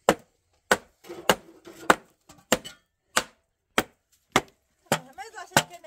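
Hatchet chopping the end of a long wooden handle to shape it: about ten sharp, evenly spaced strikes, a little under two a second.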